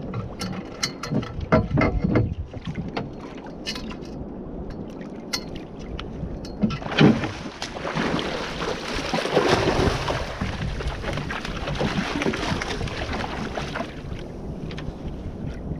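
Sharp knocks and clicks for the first few seconds, then about seven seconds in a loud splash and several seconds of water splashing as a hooked wahoo thrashes at the surface beside the canoe while it is gaffed.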